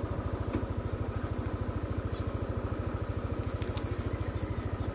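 Yamaha Aerox 155 scooter's single-cylinder four-stroke engine idling with a steady, even beat.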